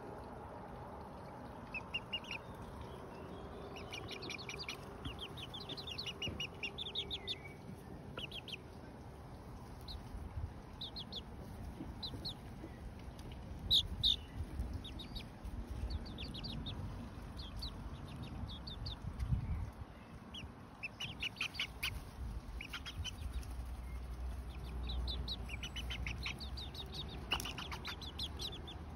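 Young bantam chicks, about two months old, cheeping: short high peeps in quick runs, with brief pauses between the runs.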